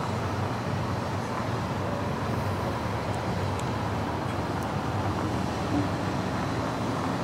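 Steady low rumble of distant city traffic heard from high above the streets, with a few faint ticks.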